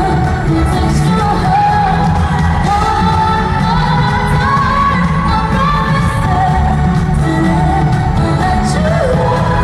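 Live pop song played through an arena's sound system: a female lead vocal singing a gliding melody over a band with drums and heavy bass.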